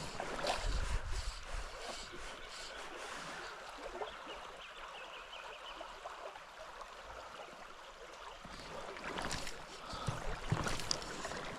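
Shallow river running, a steady rush of water, with a few brief splashes near the start and again near the end.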